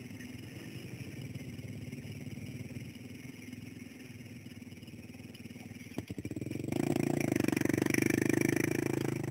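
Dirt bike engines putting along at low speed as the bikes roll slowly. About two-thirds of the way through, an engine gets much louder and stays loud.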